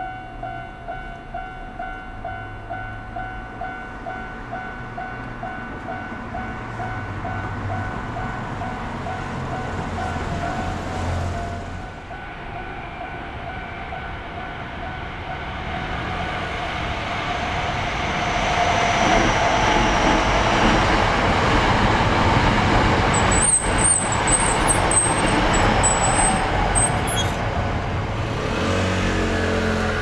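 Japanese level-crossing warning bell ringing about twice a second. After roughly eleven seconds it gives way to a Hankyu Kyoto Line electric commuter train running through the crossing, its rumble building up and then fading near the end, with a high wheel squeal in the loudest part.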